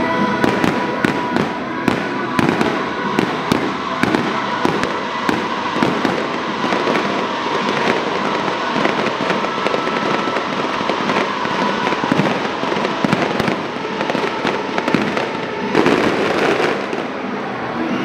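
Aerial fireworks display: shells bursting in a rapid, continuous run of bangs, several a second, over a constant crackle.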